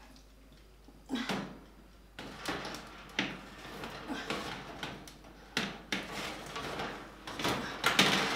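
Metal baking tray being pushed onto a gas oven's rack: several knocks and scraping clatters of metal on metal.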